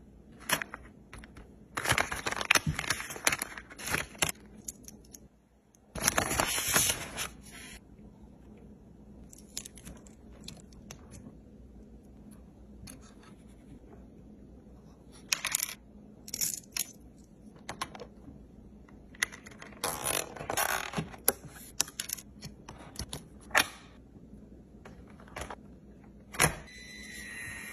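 Toy car being handled, giving jingling, clattering rattles in irregular bursts. The rattling is loudest about two to four seconds in and again around six to seven seconds, with scattered clicks between.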